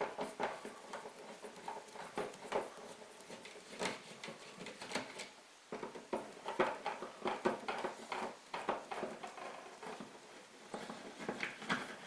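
Flathead screwdriver backing out the two mounting screws of a GFCI receptacle: a long run of faint small clicks and scrapes as the screws turn in their slots, with a short pause a little before halfway.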